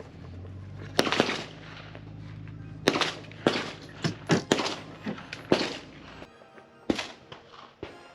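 Background music with a steady bass line, overlaid with a string of sharp gunshot cracks fired at irregular intervals, about nine in all; the music's bass drops out a little after six seconds in.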